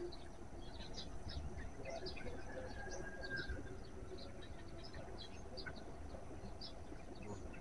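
Small birds chirping: many short, high chirps scattered throughout over a quiet outdoor background.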